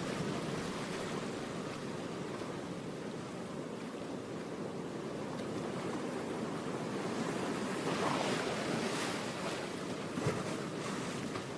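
Ocean surf: a steady wash of waves, one swelling louder about eight seconds in.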